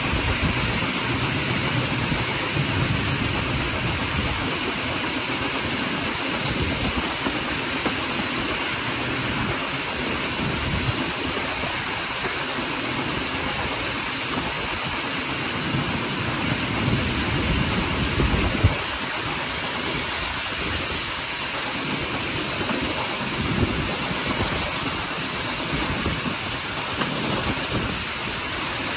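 1944 Hunslet Austerity 0-6-0 saddle tank steam locomotive working under way, heard from its cab side: exhaust and running gear under a loud, steady rushing noise, with one brief louder thump about two-thirds of the way through.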